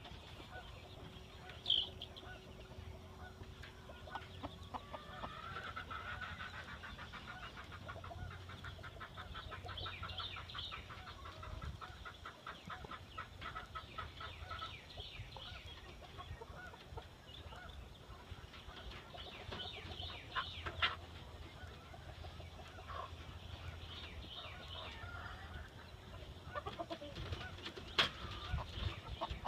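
Chickens clucking in runs of rapid short notes, with a few sharper single calls standing out.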